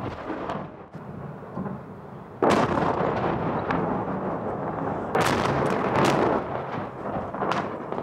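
Bomb blasts during a night air strike on a city: a sudden heavy explosion about two and a half seconds in and another about five seconds in, each followed by a long rumble.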